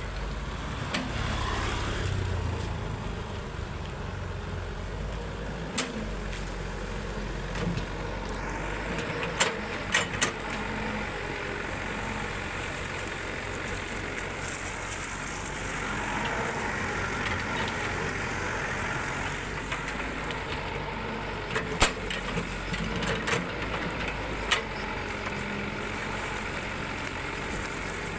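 Excavator engine running steadily, with sharp knocks now and then: once about six seconds in, a few around ten seconds, and a cluster past twenty seconds.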